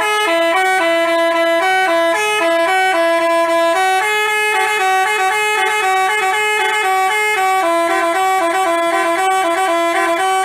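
Telolet bus horn, a Basuri-type multi-trumpet musical horn, playing a quick melody of short, stepping notes.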